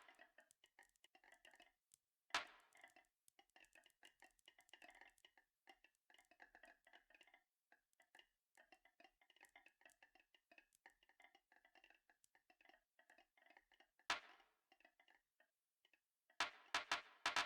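Marbles rolling and clattering along a marble run track in a quiet, dense patter of small clicks. There are single sharper knocks about two seconds in and again near fourteen seconds, and a quick burst of loud clacks near the end.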